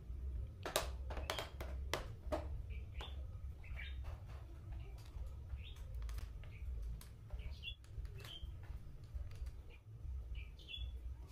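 Sharp clicks and light knocks of metal parts being handled as an electric hand planer is reassembled, mostly in the first two and a half seconds. Short bird chirps come now and then, over a steady low rumble.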